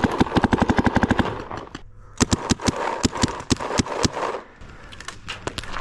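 Paintball markers firing: a rapid string of about ten shots a second for the first second and a half, then scattered single and quick paired shots through the rest.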